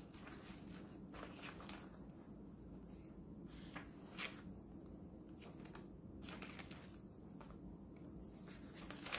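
Paper pages of a handmade junk journal being turned by hand, giving a few soft rustles and flicks, over a low steady hum.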